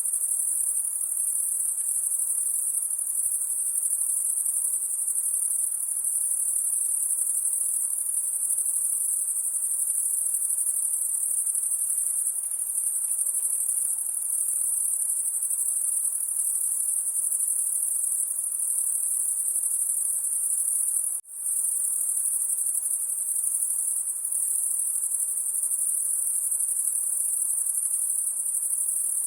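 High-pitched insect noise: an even chorus of night insects sitting very high in pitch, with one split-second dropout about two-thirds of the way through.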